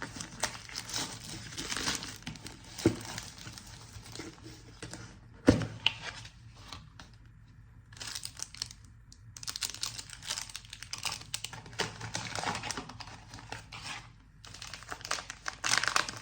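Plastic packaging of an instant tteokbokki pack being torn open and crinkled in spells, with a couple of sharp knocks, the louder one about five and a half seconds in.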